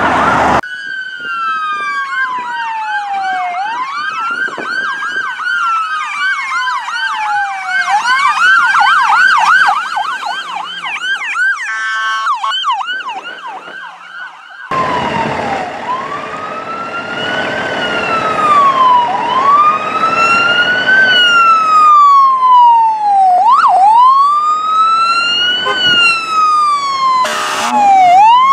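Emergency vehicle electronic sirens. In the first half, two sirens sound at once, one in a slow wail and one in a fast warble, with a brief pulsing sound about twelve seconds in. In the second half, a single siren wails, rising and falling about every two seconds.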